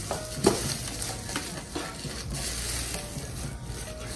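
Packaging rustling and crackling as an unboxed item is handled, with a few light clicks and knocks.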